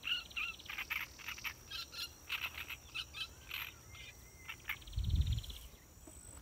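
Birds chirping and chattering in quick short calls, with two fast buzzy trills among them, over a steady high insect whine. A low rumble comes about five seconds in.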